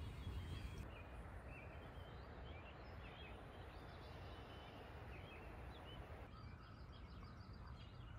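Faint morning birdsong: many short chirps and whistles from several small birds, over a steady low rush of distant rapids.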